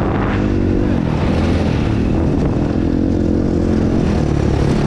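Dirt bike engine running steadily at moderate revs, its pitch wavering slightly with the throttle.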